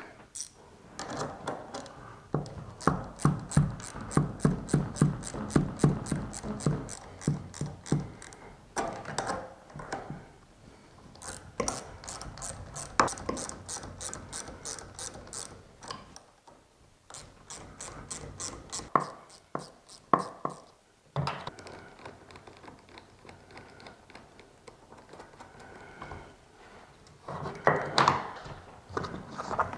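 Ratchet wrench clicking in quick runs of about four or five clicks a second, with short pauses between runs, as it loosens the cable and chain adjustment nuts on an RV slide-out's in and out brackets. A few louder knocks of metal tools fall between the runs.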